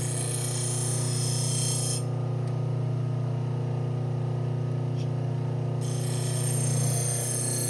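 Electric motor of a powered leather stropping wheel running steadily with a low hum, a knife edge being stropped on it. A high hiss over the hum drops away for about four seconds from about two seconds in.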